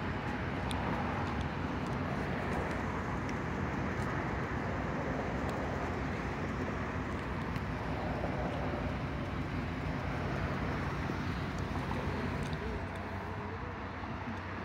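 A vehicle engine running with a steady low hum over outdoor traffic noise; the hum drops away about twelve seconds in.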